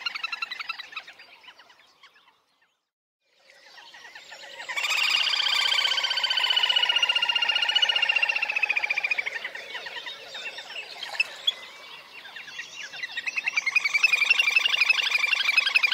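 Little grebe giving its whinnying call, long high rapid trills in bouts. One trill fades out about two seconds in, another swells up after a short silence and tapers off, and a third rises again near the end.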